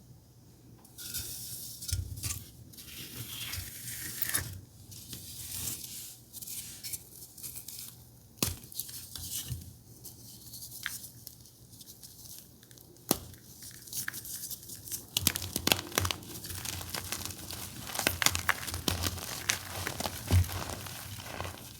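Blue reformed gym chalk being crushed: dense crumbling and crackling with a few sharp snaps, getting busier in the second half.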